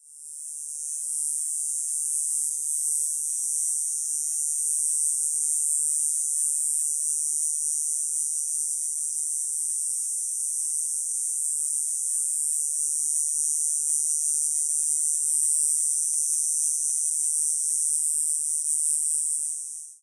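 Cicada song: a continuous, high-pitched buzz that swells in over the first second, holds steady and cuts off at the end.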